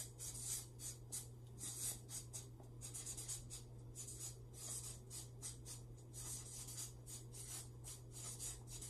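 Marker writing on flip-chart paper: a faint, quick, irregular run of short strokes, over a steady low hum.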